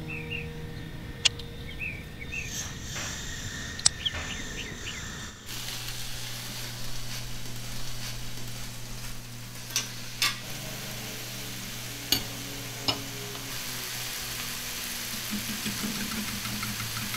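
Faint chirping and two sharp clicks at first, then, from about five seconds in, a steady sizzle of sliced zucchini and peppers frying in a cast iron skillet, broken by a few sharp clicks and taps.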